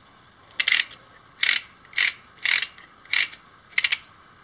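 3D-printed plastic wind-up fan being wound by hand, its gear mechanism giving six short bursts of rapid clicking, one for each winding stroke, as the spring is tightened.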